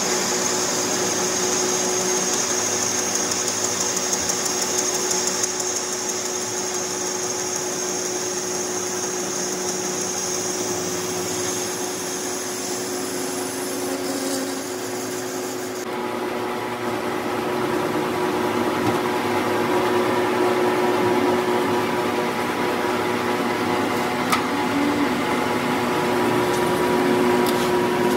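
Metal lathe running, its chuck spinning a steel plate while the cutting tool turns it, with a steady machine hum. A high-pitched cutting hiss sounds over the hum and stops abruptly about halfway through, leaving the lathe running.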